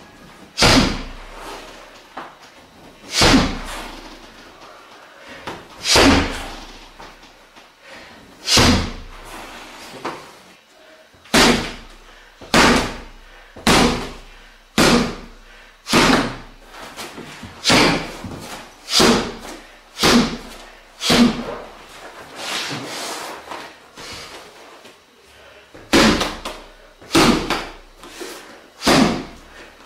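Heavy slams of a body dropping backward onto a hard floor with the elbows striking down, in a backward dropping elbow strike drill. They come a few seconds apart at first, then about one a second, with a short lull in the last third.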